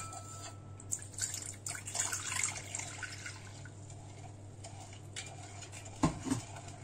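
Warm water being poured from a glass into a mixing bowl, a faint splashing trickle with a few small clinks. A dull knock about six seconds in.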